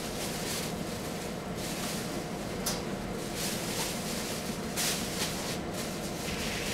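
Steady hum of bench test instruments' cooling fans, with a few short clicks from front-panel buttons being pressed on a lock-in amplifier, about a third of the way in and again past the middle.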